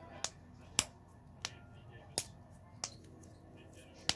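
Bubbles of a silicone push-pop fidget toy being pressed one by one: about six sharp pops, a little over half a second apart.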